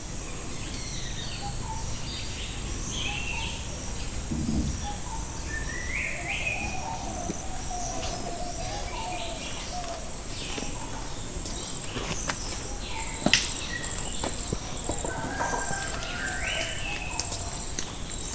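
Insects, such as crickets, keeping up a steady high-pitched drone, with birds calling and chirping over it on and off. A few sharp clicks sound in the second half.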